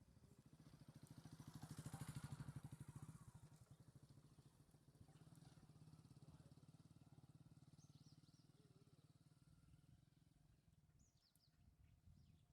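Faint, evenly pulsing engine of a passing motor vehicle, loudest about two seconds in and then easing off, with a few short, high chirps near the end.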